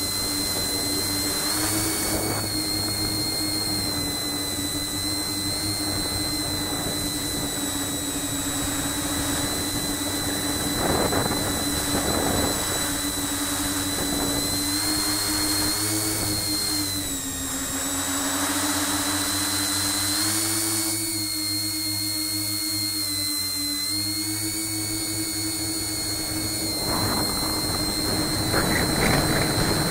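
Tricopter's brushless motors spinning 9x5 tri-blade propellers in flight, a steady whine. Its pitch dips and rises slightly twice in the second half as the throttle changes, with a few short rushes of wind noise.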